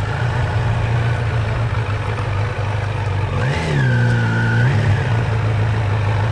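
Motorcycle engine running steadily under way, with road and wind noise. Just past the middle, a horn-like tone with a sharp rise sounds for about a second, then drops away.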